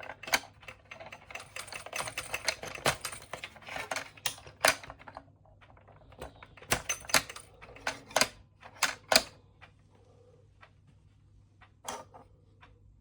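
Hard plastic clicking and clattering from a Wallace & Gromit marble-powered alarm clock. A rapid, uneven rattle lasts about five seconds, followed by a cluster of separate sharp clicks a couple of seconds later and one last click near the end.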